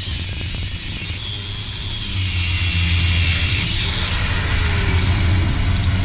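Electric grinder running on metal while a new vice wedge is being shaped, with a high whine that shifts in pitch over a steady low hum. It gets louder about two seconds in.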